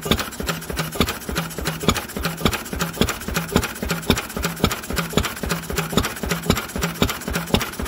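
Lister B single-cylinder stationary petrol engine running steadily just after a cold start, warming up as its choke is eased off. It gives a fast, even beat with sharp ticks from the valve gear.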